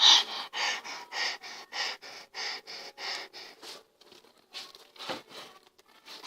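A girl's quick, breathy puffs of breath, about three a second for nearly four seconds, then a few faint ticks.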